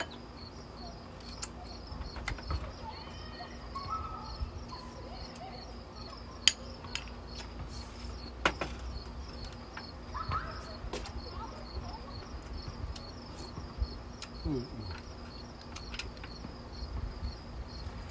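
Insects chirping in a steady, evenly pulsed high trill throughout, with occasional sharp clicks of a spoon against bowls, two of them louder, about six and eight seconds in.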